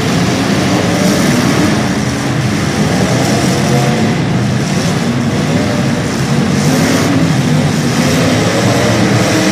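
Motor-vehicle engines running loudly without a break, their pitch repeatedly rising and falling as they are revved.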